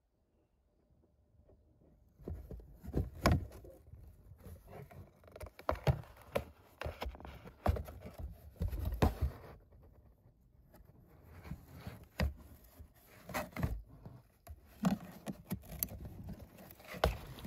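A ragdoll cat at the mouth of a cardboard box, its movements making irregular taps, scrapes and thumps on the cardboard, heard from inside the box, starting about two seconds in.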